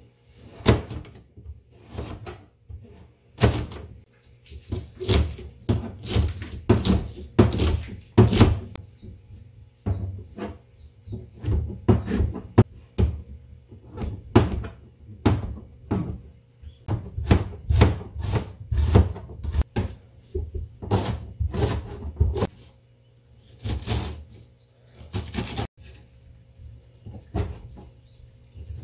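Kitchen knife chopping on a cutting board: a run of quick knocks as the blade cuts through carrot, then king oyster mushroom, then boiled squid. The strokes come in clusters with short pauses between them.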